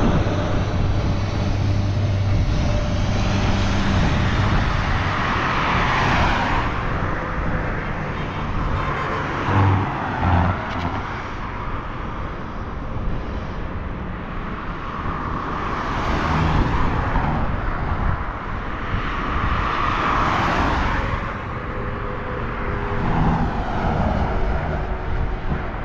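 Road traffic: a steady rumble of engines and tyres, with vehicles swelling past about every four seconds.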